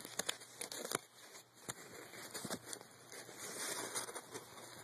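Faint rustling and scraping of cardstock and a fabric strip being pushed through a cut hole, with a few small clicks in the first second.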